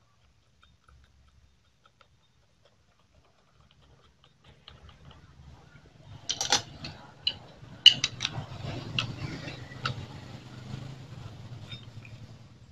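Light metallic clicks and clinks of clutch parts and a socket wrench being handled on a Yamaha Jupiter Z's clutch hub, scattered irregularly from about six seconds in. Before that it is nearly quiet, and a low steady hum sets in about five seconds in.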